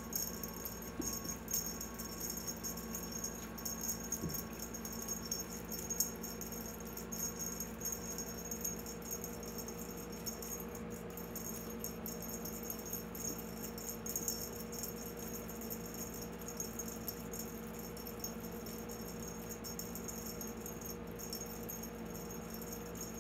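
Faint, continuous light rattling and crinkling from a cat's wand toy and play tunnel as the cat plays with them, with a few soft taps in the first few seconds over a low steady hum.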